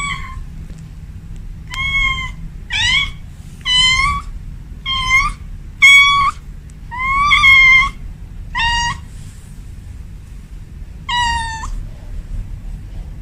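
A cat meowing in a quick series of about eight short, high-pitched meows, then a pause and one more meow near the end.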